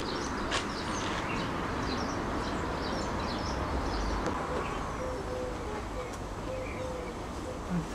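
Small birds chirping repeatedly in short high notes over a steady background hiss.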